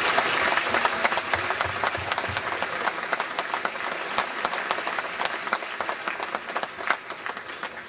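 Audience applauding, a dense clatter of many hands clapping that thins out toward the end.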